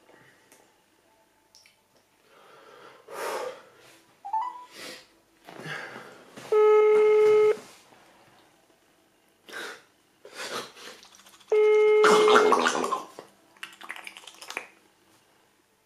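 Phone ringback tone heard through a smartphone's speaker: a steady beep about one second long, twice, about five seconds apart. This is the ringing signal of an outgoing call that has not yet been answered. Short breathy noises come and go between the rings.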